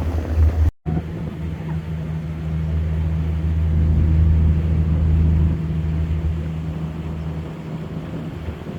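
A boat's twin engines running steadily while under way, a low, even drone that cuts out briefly about a second in and eases slightly past the middle.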